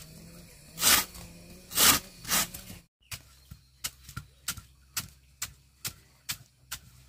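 Chopping blows: three heavy strikes, then after a break a quicker run of about ten lighter, sharper chops at roughly two to three a second.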